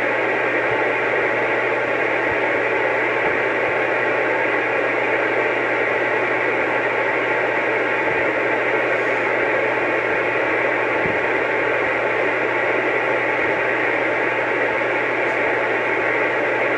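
CB radio receiver hissing with steady open-channel static between transmissions, over a steady low hum.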